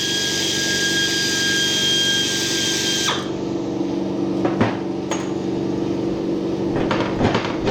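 A power wrench runs on the engine's cylinder head bolts with a hissing whine for about three seconds, then stops abruptly. A few sharp metallic clicks and knocks follow as the bolt and tools are handled, over a steady low machine hum.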